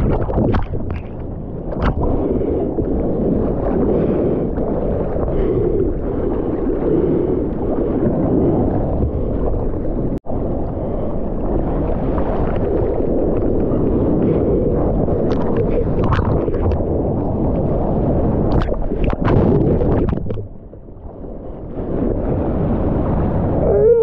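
Sea water splashing and gurgling at the waterline as a bodyboarder paddles with his arms, a steady, low, muffled wash of water. It cuts out for an instant about ten seconds in and goes quieter for a couple of seconds near the end.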